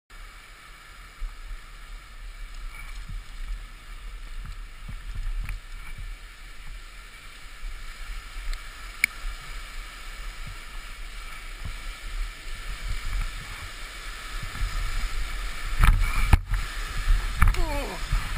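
Mountain bike riding fast down a rough forest trail: steady wind rushing over the microphone, with the bike rattling and thudding over bumps. About sixteen seconds in comes a burst of heavy knocks as the rider crashes.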